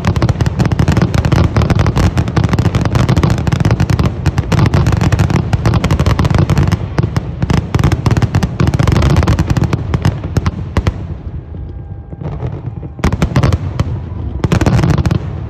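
Fireworks going off in a dense barrage of rapid cracks and booms. About eleven seconds in the barrage thins out to a few separate volleys.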